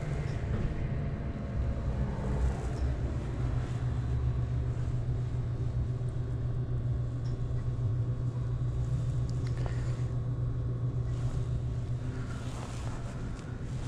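A steady low mechanical hum that keeps one even pitch throughout, with some rumble underneath.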